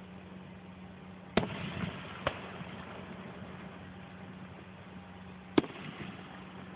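Distant aerial fireworks shells bursting: three sharp booms, about a second and a half in, just under a second later, and a louder one near the end, the first trailing a brief rumble.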